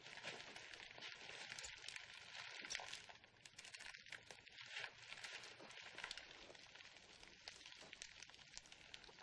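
Faint, fast clicking and rustling: metal scissor blades snipping and clicking together while fabric is handled.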